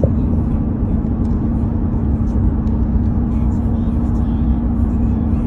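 Steady low drone of road and engine noise inside the cabin of a car cruising on a highway.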